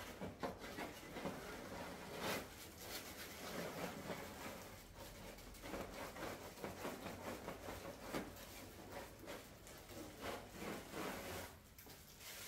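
Irregular rustling and rubbing of packaging against a resin statue piece as it is handled, with small clicks and taps throughout.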